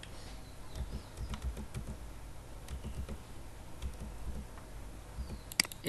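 Computer mouse clicks while browsing a file dialog: faint scattered knocks, then a sharp double click near the end.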